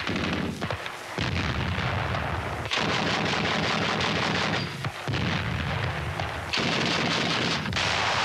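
Light anti-aircraft gun firing in long rapid bursts, the fire broken by short pauses four or five times.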